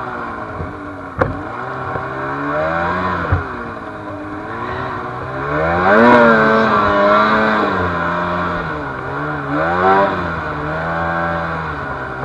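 Snowmobile engine revving up and down over and over, its pitch rising and falling with each blip of the throttle and loudest about six seconds in. Two sharp knocks come about one and three seconds in.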